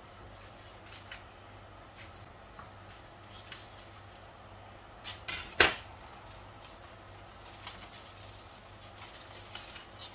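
A knife cutting through a foil-wrapped shawarma, with scattered small clicks and crinkles of the foil and a few sharp knocks about five seconds in, the last of them the loudest.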